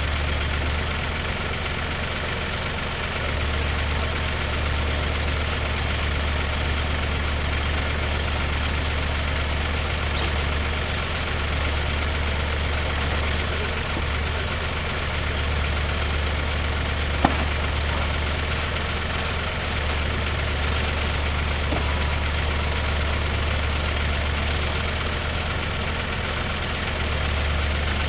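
Engine idling steadily, with one sharp knock partway through.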